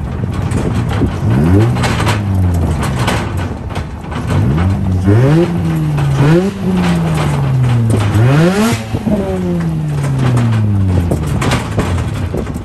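Car engine revved hard and repeatedly, its pitch climbing and dropping about five times as the car is driven aggressively, typical of drifting.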